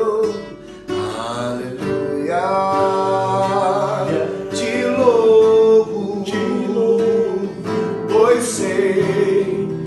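Worship song: a voice singing long held notes over a strummed acoustic guitar.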